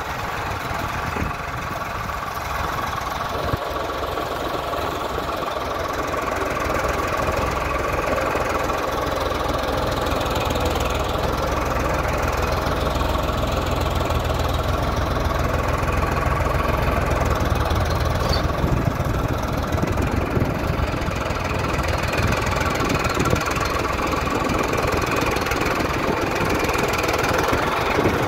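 Diesel tractor engine running steadily, growing louder and deeper from about six seconds in.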